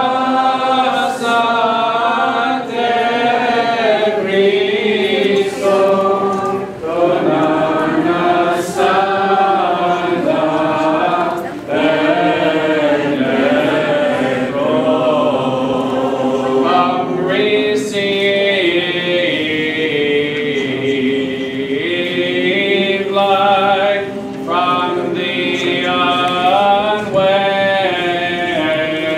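A choir chanting a Greek Orthodox liturgical hymn, sung in long phrases with brief pauses between them.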